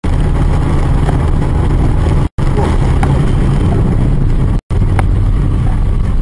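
Steady low rumble of vehicle and road noise, broken twice by abrupt cuts about two seconds apart.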